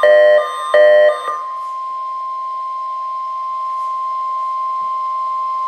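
NOAA Weather Radio alert tones during a required weekly test: a pulsing electronic pattern alternating between two tone sets for about the first second and a half, then the steady single 1050 Hz warning alarm tone.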